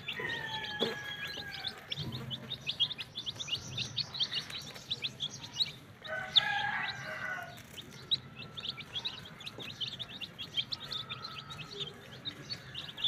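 A brood of young chicks peeping without pause, many quick high peeps overlapping. A louder, lower call stands out about six seconds in.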